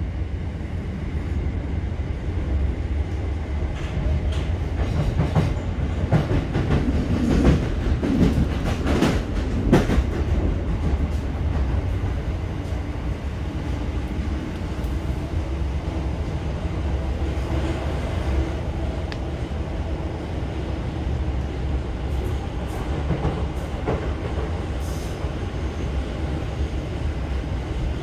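Cabin sound of a Class 455 electric multiple unit running: a steady low rumble, with a run of wheel clicks and clatter over points and rail joints a few seconds in.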